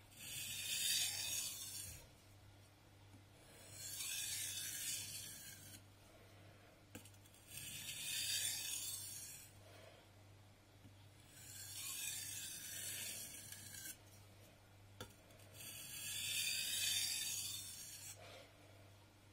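Steel knife blade scraped in strokes across an abrasive surface during sharpening: a hissing rasp in five bursts about four seconds apart, each lasting about two seconds.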